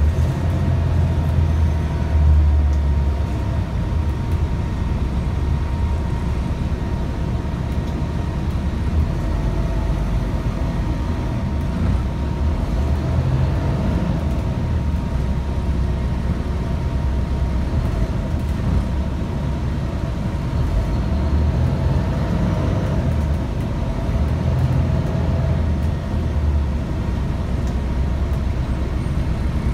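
Inside a 2001 Gillig Low Floor transit bus on the move: a steady low rumble of engine and road, with a faint steady high tone running under it.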